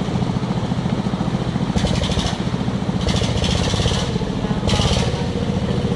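Dongfeng engine driving the gold-mining rig, running steadily at an even pace with a fast, regular pulse.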